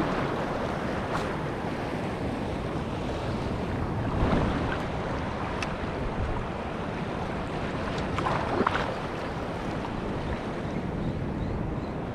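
Sea surf washing in, with wind buffeting the microphone; the water surges louder about four seconds in and again about eight and a half seconds in.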